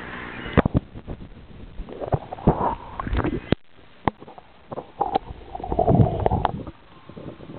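Water sloshing and gurgling against a camera microphone dipped at and below the waterline, with sharp knocks and short splashes coming in irregular bursts.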